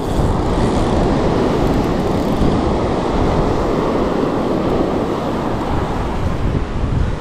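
Steady, loud noise of surf along the shore and wind on the microphone, heaviest in the low end.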